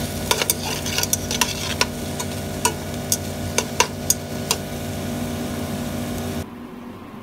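Diced onions sizzling in oil in a pot as they are stirred to caramelize, with a string of sharp clicks from the utensil striking the pot over the first four and a half seconds. The sizzle drops away suddenly near the end.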